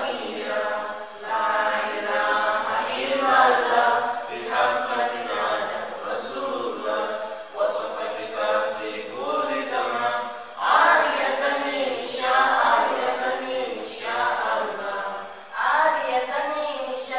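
A group of voices singing unaccompanied, in melodic phrases with brief pauses between them.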